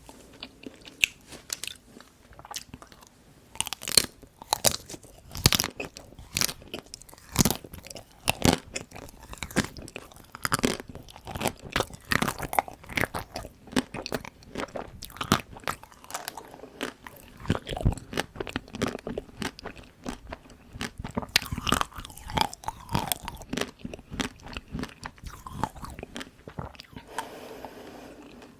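Close-miked biting and chewing of frozen dark-chocolate-coated Tico ice cream bites: many sharp, crisp crunches in quick succession as the hard chocolate shell breaks. The crunching softens near the end.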